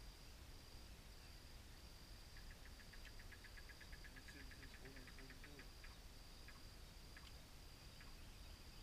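Near silence in open pasture: faint insects chirping in a steady, evenly pulsing high note, joined in the middle by a quick run of faint ticks lasting a few seconds.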